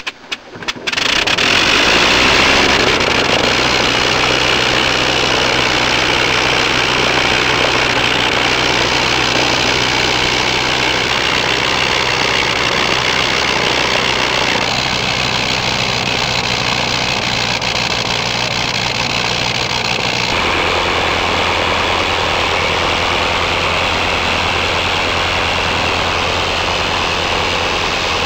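80 hp Le Rhône rotary engine of a Fokker Dr.I triplane catching after a hand-propped start with a few pops, then running steadily with its wooden propeller turning. Its speed shifts in steps a few times, about 8, 14 and 20 seconds in.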